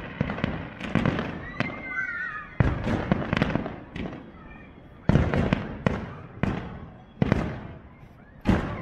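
Aerial fireworks bursting: a rapid series of loud bangs, each trailing off in echo. They thin out around four seconds in and resume with heavy reports about five seconds in.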